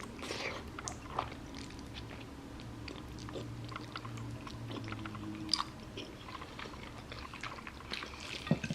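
A person chewing a mouthful of Korean black bean noodles (jjajangmyeon) close to the microphone, with many small wet clicks and smacks.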